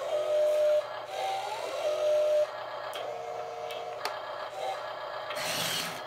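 Built-in sound effects of a Double E F-96 1/14-scale RC skid steer loader, played through its small speaker: an electronic engine tone that comes and goes in short stretches. Under it is the whir of the toy's electric motors as the loader arms raise the bucket, with a few clicks and a short hiss near the end.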